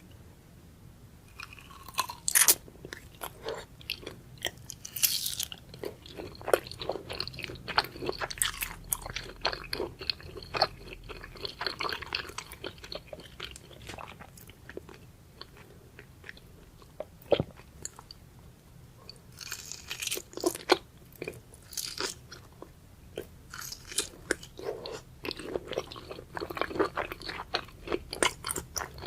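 Close-miked chewing and wet mouth sounds of eating raw scallop sashimi: dense runs of short clicks and smacks, starting after about a second and a half of quiet and thinning out for a few seconds in the middle.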